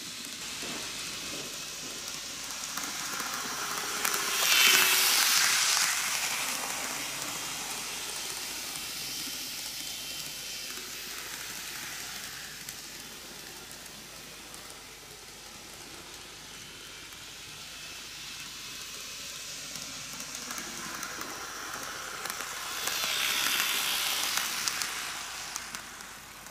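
N gauge model electric trains running on curved track: the wheels rolling on the rails and the motors make a steady rushing hiss that swells twice as a train passes close by, about five seconds in and again near the end.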